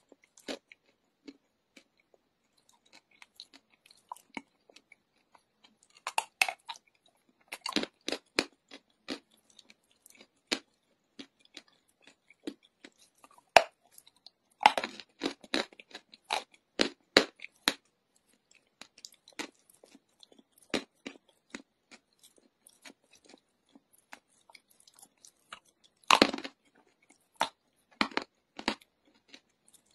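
Chunks of chalk being bitten and chewed: dry, sharp crunches and crackles that come in bunches, a few seconds of rapid crunching at a time with sparse chewing sounds between.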